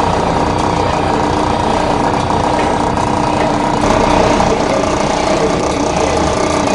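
Escalator machinery running, heard up close: a loud, steady mechanical rattle over a constant hum of several tones, swelling slightly about four seconds in.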